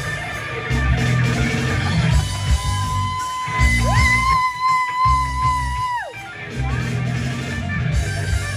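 A live rock band playing: electric guitar and bass over a steady drum beat. A long high note is held over the top, sliding up about four seconds in and dropping away about two seconds later.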